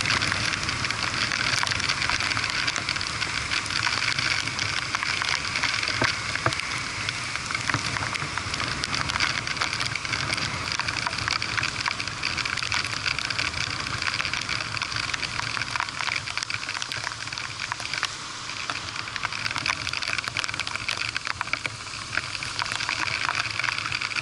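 Steady hiss of heavy rain, with many small raindrop ticks striking close to the microphone, heard while riding a scooter along a wet road.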